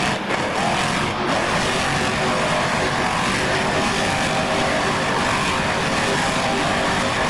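Bone Shaker monster truck's engine held at high revs while the truck spins donuts, a steady, loud engine noise throughout.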